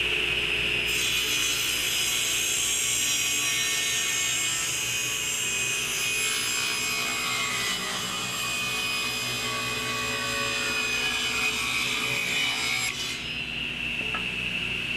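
Table saw running with a steady high whine. From about a second in, the blade cuts through a wooden plank pushed past it on a hinged taper jig, ripping a 7-degree taper, with a dense rasping hiss over the whine. About thirteen seconds in the cut ends and the blade spins free.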